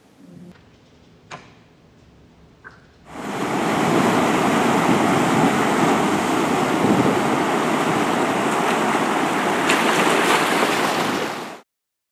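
Loud, steady rushing of sea surf and wind that starts abruptly about three seconds in and cuts off sharply near the end. Before it, quiet room tone with two faint clicks.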